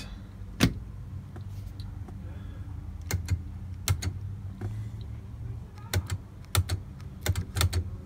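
Sharp, irregular clicks of a 1971 VW Beetle's headlight switch and turn-signal/dimmer stalk being worked, flicking the headlights between high and low beam, over a steady low hum.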